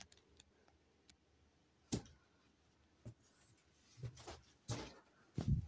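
Faint handling noises: a few scattered taps and rustles about a second apart, and a louder dull thump near the end, as toys are picked up and moved.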